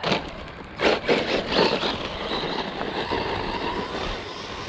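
Small electric RC car driving over gravel: its motor whines while the tyres crunch and scatter gravel, with loud bursts in the first two seconds and a steadier run after.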